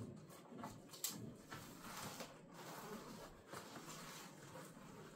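Faint rustling and light taps of a vinyl blackout panel being pressed by hand onto hook-and-loop tape along the window frame, with one sharper click about a second in.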